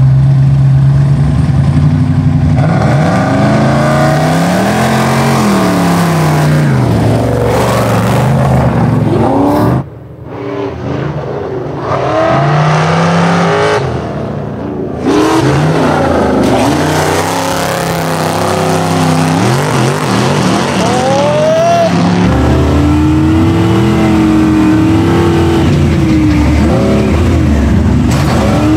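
Off-road race trucks, a Ford F-100 prerunner and a Ford Ranger, running flat out on a dirt track: engines revving hard, their pitch climbing and falling again and again through the gear changes. The sound drops off briefly and changes abruptly about 10 and 15 seconds in.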